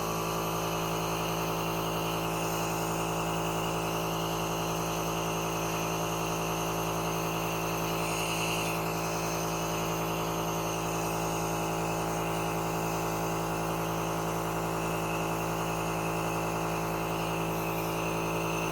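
Home compressor nebulizer running: its small air-compressor motor gives a steady, even hum.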